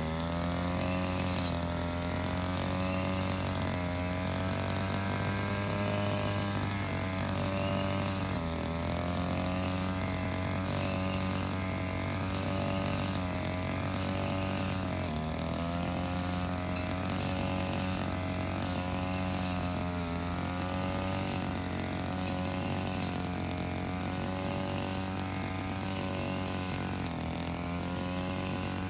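Engine-driven brush cutter running while mowing grass, its engine pitch rising and falling every few seconds as the cutting load changes. A single sharp click about a second and a half in.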